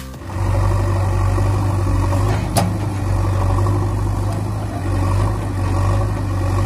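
Vehicle engine idling with a steady low drone. There is a single sharp click about two and a half seconds in.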